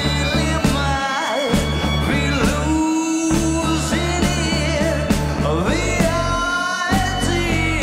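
Rock band playing live, with a steady beat of drum hits under bass notes and singing.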